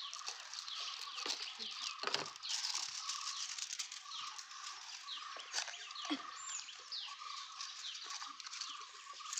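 Birds chirping over and over, with chicken-like clucking among them, over a steady high drone. A few soft clicks and rustles come from a small cardboard box being handled.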